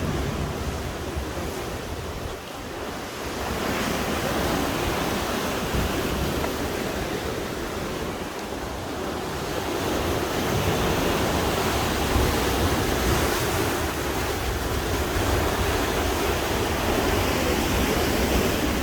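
Sea waves washing against the shore in a steady wash that swells up about four seconds in and again about ten seconds in, with wind on the microphone.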